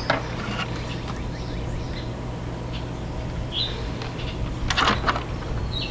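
Sharp clicks and scrapes of spade terminals being worked off the furnace's switch, loudest about five seconds in, over a steady low hum, with a few short bird chirps.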